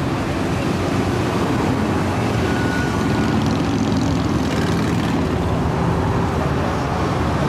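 Many motorcycles riding past in a continuous convoy on a dual carriageway, their engines and exhausts overlapping in a steady, unbroken drone with several engine notes rising and falling.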